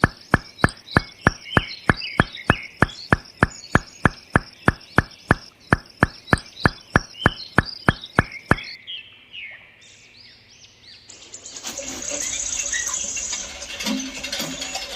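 Outdoor animal ambience. Bird chirps sit over a steady train of sharp clicks, about three a second, that stops after about eight and a half seconds. After a quieter spell, a fuller chorus of birds and other animal calls comes in from about eleven seconds in.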